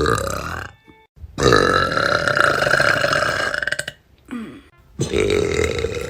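Young women burping loudly, one burp after another: a short one, then a long drawn-out one of about two and a half seconds, then another long one beginning near the end.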